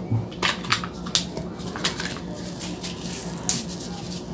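Plastic tub of ssamjang being handled and its lid pried off: a run of sharp plastic clicks and crackles.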